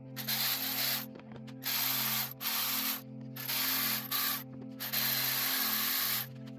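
Milwaukee M12 cordless 3/8-inch electric ratchet run in about five short bursts, the last the longest, spinning out the camshaft cap bolts.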